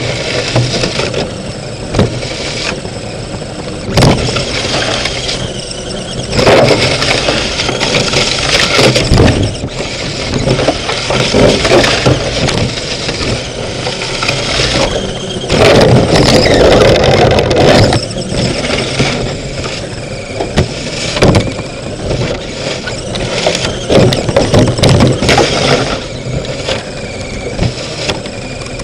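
RC rock crawler's electric motor and geared drivetrain running in surges as it is driven, picked up from inside its body shell, with sharp knocks and rattles of the body and chassis now and then. The loudest stretch lasts a couple of seconds, a bit past the middle.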